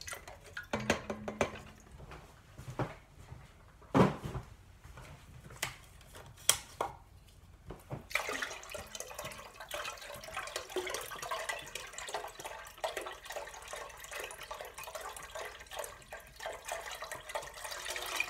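Chicken stock pouring from a carton into a stainless steel stock pot, a steady splashing stream from about eight seconds in. Before that come a few scattered knocks and clicks.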